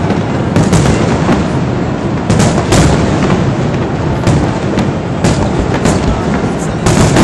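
Fireworks display: an irregular series of loud bangs and bursts, about a dozen, some in quick pairs, over a steady din of background noise.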